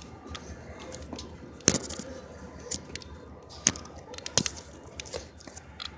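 Scattered sharp knocks and scuffs of someone climbing a ladder, the loudest about two seconds in, over a low rumble.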